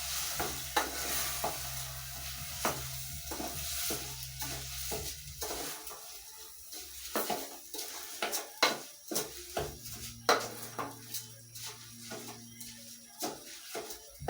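A spoon stirring dry rice through a pot of sizzling beef, potatoes and spices, with frequent scrapes and knocks of the spoon against the pot. The sizzle fades about halfway through while the spoon strokes go on.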